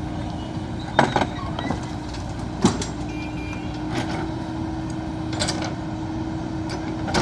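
JCB backhoe loader's diesel engine running steadily, with several sharp metallic knocks and clanks from the working machine: two about a second in, a loud one near the three-second mark, and a few fainter ones later.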